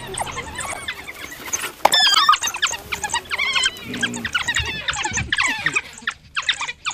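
African wild dogs calling together: many rapid, high-pitched chirps and squeals overlapping in a twittering chorus, with a louder run of wavering squeals about two seconds in.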